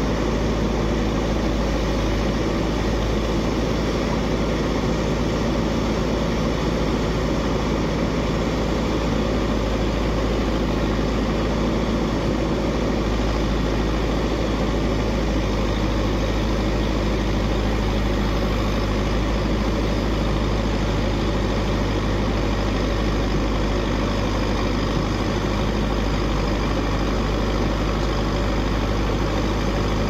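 Backhoe loader's diesel engine running steadily at a constant speed, with no revving.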